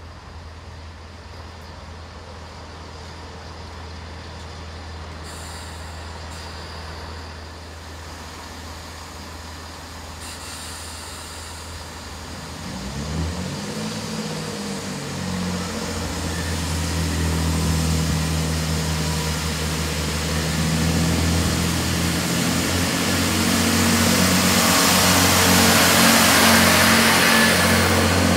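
Class 166 diesel multiple unit idling with a low steady hum, then its engines open up about halfway through and it pulls away. The engine note climbs and wheel-on-rail noise grows louder as it passes close by near the end.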